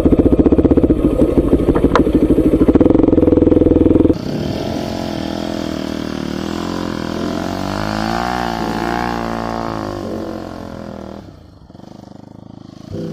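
Bajaj Pulsar NS200's single-cylinder engine running loud and close for about four seconds. The sound then changes suddenly to the same motorcycle engine heard further off, its pitch climbing and then falling as it is ridden and revved, fading away near the end.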